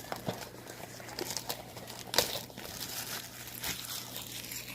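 Crinkling of plastic wrapping on a box of trading card packs being handled and opened, a run of quick crackles with a sharper snap about two seconds in.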